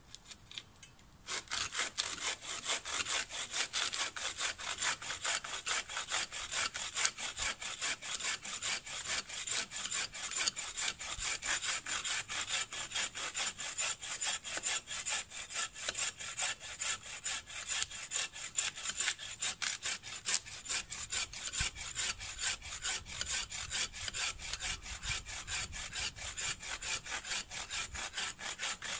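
Collapsible all-metal buck saw with a 320 mm blade cutting through a solid dead log by hand, in steady, rapid back-and-forth strokes that start about a second in.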